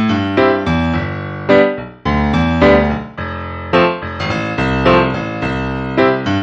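Background music played on piano or electric piano: a quick, bouncy run of struck notes.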